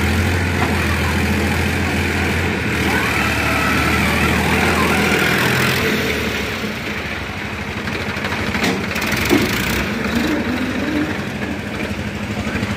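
Tractor diesel engine running steadily at low revs, its drone easing off a little about six seconds in. Two sharp knocks come about nine seconds in.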